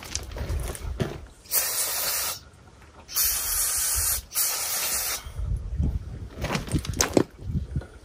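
Two hissing bursts of pressurised spray, the first just under a second long and the second about two seconds, followed by a few light knocks.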